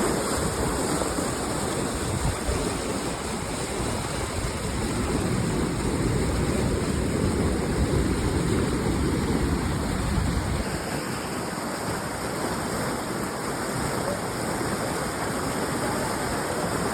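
Steady rushing water, its deep rumble dropping away about eleven seconds in.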